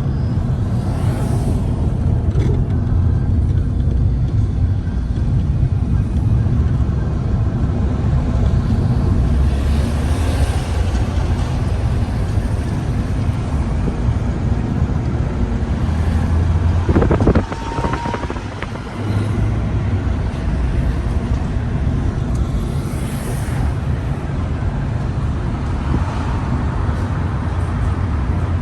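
Steady low rumble of a motor vehicle on the road, with a brief sharp sound about two-thirds of the way through.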